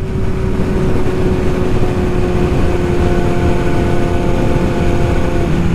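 Yamaha R6 sport bike's inline-four engine running at a steady cruising speed, its pitch holding level, over a steady rush of wind noise.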